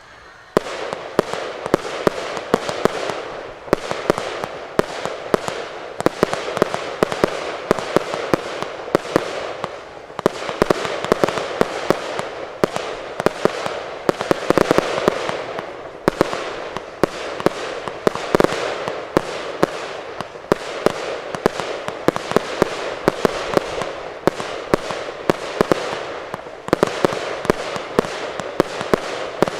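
Fireworks display in full barrage: sharp bangs several times a second over continuous crackling, starting about half a second in, with a few brief lulls.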